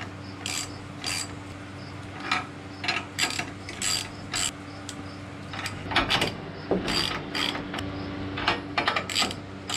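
Ratchet wrench clicking in short irregular bursts as it turns the 7/8-inch nuts that hold the hydraulic fittings to the rear-remote bracket, with a few metallic tool clinks.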